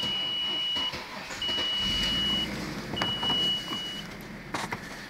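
Three long, steady beeps at one high pitch, about a second each, while the six-cylinder 2.6-litre petrol engine of a 1996 Audi A4 is started and runs at idle. Its engine knock is practically inaudible at these low revs.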